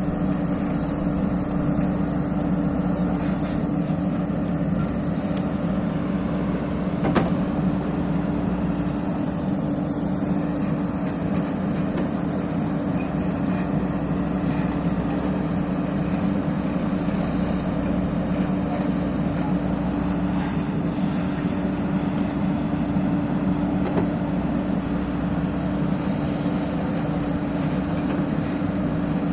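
Backhoe loader's diesel engine running steadily under work, with one sharp knock about seven seconds in.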